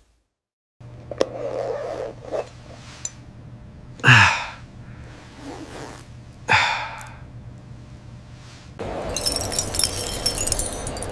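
Sound-design effects: two loud whooshes sweeping down in pitch, about four and six and a half seconds in, over a soft low hum with a few light clicks. Near the end comes a dense metallic jingling of gold bangles and rings.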